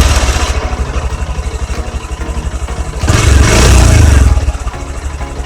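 Honda X-Blade BS6 motorcycle's single-cylinder engine idling just after starting, revved once briefly about three seconds in, then settling back to idle.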